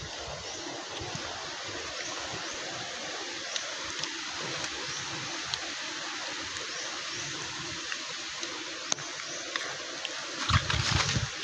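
Steady outdoor rushing noise like flowing water, with a few faint clicks and a louder low bump near the end.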